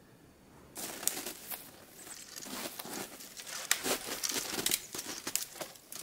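Footsteps crunching on frozen, crusted snow, starting about a second in: a run of irregular sharp crackles as the crust gives under boots.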